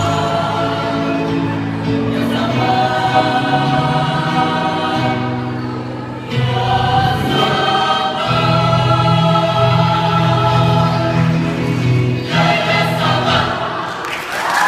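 Mixed choir singing in full harmony, holding long chords with a brief drop in loudness about six seconds in before the voices come back in.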